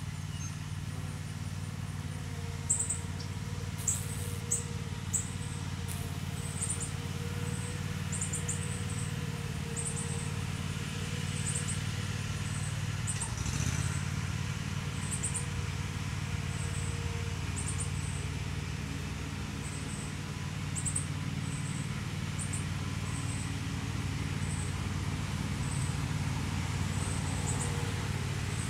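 Steady low machine hum, like an idling engine, runs throughout. Over it, short high insect chirps repeat about once a second. A few sharp clicks come a few seconds in.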